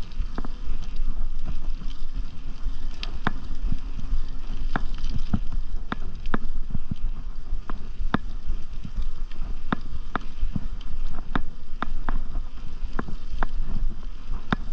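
Wind rumbling on the microphone of a bicycle-mounted or rider-worn camera while riding a paved trail. Sharp clicks and rattles come irregularly, about once or twice a second, from about three seconds in.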